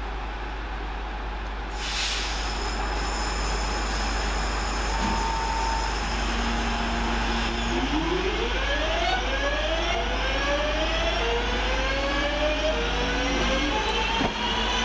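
Class 323 electric multiple unit pulling away from the platform. Its traction motor whine climbs in pitch in a series of steps as it accelerates. A short hiss comes about two seconds in.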